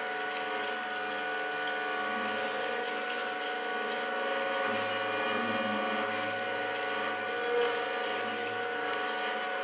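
Sustained experimental-music drone of many steady held tones, from a classical guitar laid flat and bowed across its strings, with a harmonica held in the player's mouth.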